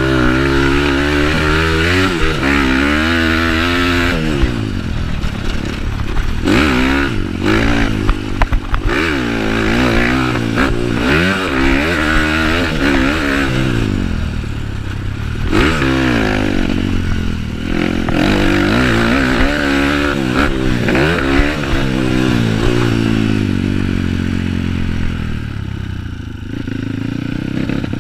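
Bored-out Kawasaki KLX dirt bike's single-cylinder four-stroke engine revving up and down under hard riding, its pitch rising and falling again and again with throttle and gear changes. A burst of clattering knocks from the bike comes about a third of the way in, and the engine eases off near the end.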